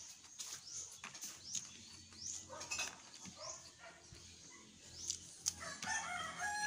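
Animal calls: short, high chirps that sweep upward and repeat every half second or so, then a louder, longer whining call near the end.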